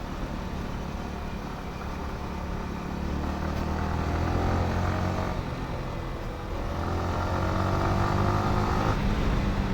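Yamaha R15 V4's 155 cc single-cylinder engine pulling under acceleration: the pitch climbs, falls back about five seconds in, then climbs again before dropping near the end.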